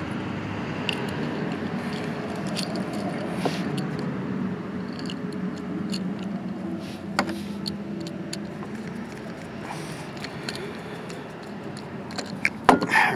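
Small clicks and light rattles of a plastic extension-cord plug and a screwdriver being handled while the plug is wired, over a steady low background rumble.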